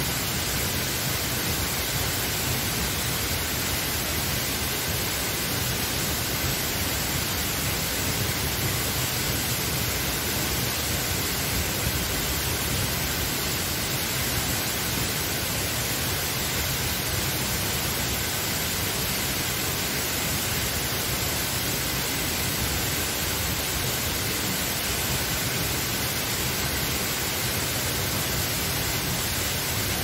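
The Sendang Gila waterfall rushing steadily: an even, unbroken noise of falling water.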